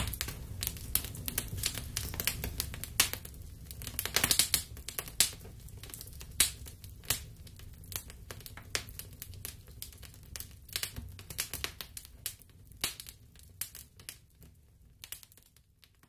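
Irregular crackling and popping of a burning costume head, over a low rumble; the crackles thin out and fade near the end.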